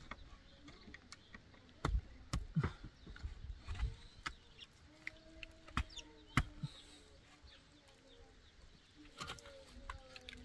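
Scattered knocks and clatters, several in the first half and a few more near the end, with faint animal calls in between.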